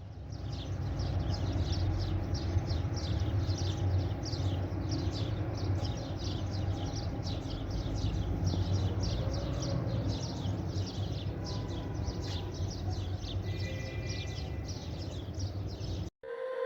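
Outdoor ambience: a short high chirp repeated evenly about three to four times a second, over a steady low rumble. Both cut off suddenly near the end.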